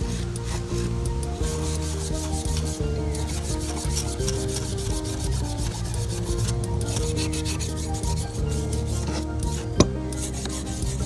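Repeated rasping rubs of hand abrasion on a rusty old pipe wrench, over background music with steady low notes; one sharp click about ten seconds in.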